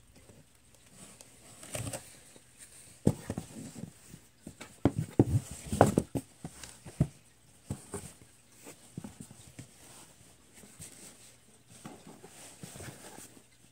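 Irregular knocks, taps and rustling from hands moving a doll and things about in a cardboard toy box, densest and loudest from about three to seven seconds in, then sparser.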